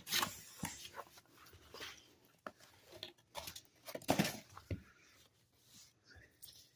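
Cardboard comic mailer being opened and handled: scattered clicks, scrapes and short tearing and rustling sounds, busiest about four seconds in.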